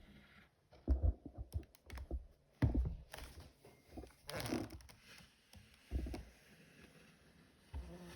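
A clothes iron being pressed and moved over folded fabric on an ironing board: a few irregular dull thuds as it is set down and shifted, with a longer rustle about halfway through.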